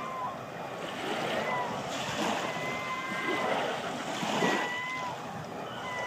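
Gulls on the water calling with several drawn-out, steady-pitched cries over small waves lapping onto the shore. The loudest wave wash comes about four and a half seconds in.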